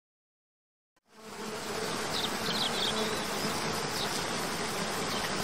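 Rushing water of a waterfall fades in after about a second of silence and runs as a steady roar. A few short high chirps sound over it.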